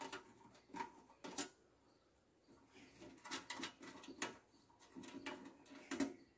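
Scattered light clicks and taps of small metal parts being handled on a thin titanium wood stove, as screws are taken out of the stove body.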